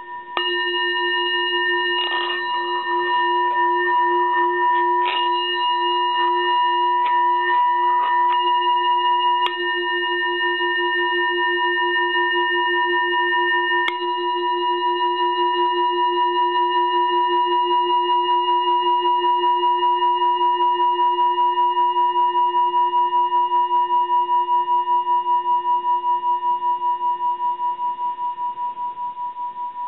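Tibetan singing bowl struck with a wooden striker about half a second in, with light scraping and rattling of the striker against the rim for the first several seconds. It then rings on alone with a slow, even wavering beat and fades near the end.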